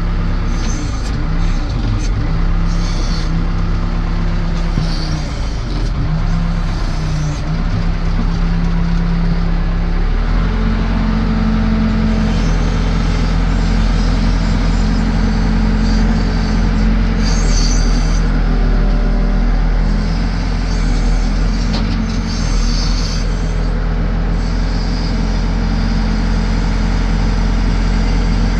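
Case 580 Super L backhoe's four-cylinder diesel engine running. Its note shifts up and down under changing load, then about ten seconds in the engine speeds up and holds a higher, steady note.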